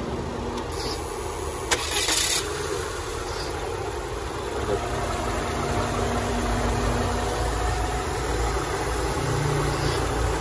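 Peugeot engine idling steadily, with one sharp click about two seconds in. It is running on an engine ECU under test with its immobiliser disabled; that it runs shows the ECU itself is good.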